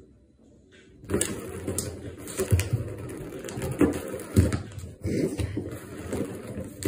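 A cat batting at a round plastic track-ball toy with a cardboard scratch pad, the plastic clattering and rattling with repeated sharp knocks, starting about a second in.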